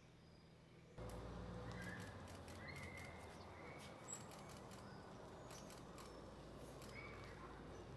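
Birds chirping in short calls over the faint low rumble of a coach bus pulling in slowly. Both start suddenly about a second in, after near silence.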